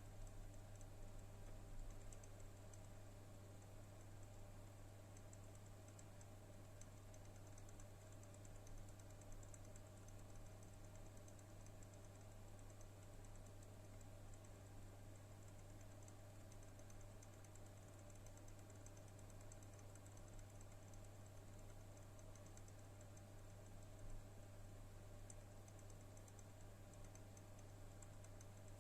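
Faint, rapid, uneven ticking from a fan of an HP OEM NVIDIA RTX 3060 Ti graphics card spinning at idle speed, with a steady low hum under it. The ticking is a fault in one of the card's two fans, and it stops when that fan is held still.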